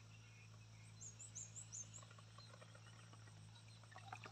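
Near silence: quiet outdoor ambience with a faint steady low hum and a short run of about five faint, high, rising chirps about a second in.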